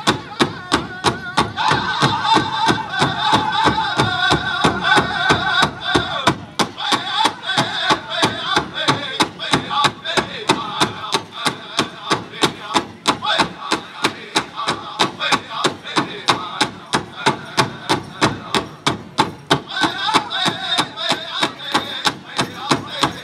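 Powwow drum group playing a women's fancy shawl song: a large drum struck in unison at a fast, steady beat of about three strokes a second, under high group singing that drops out briefly about six seconds in.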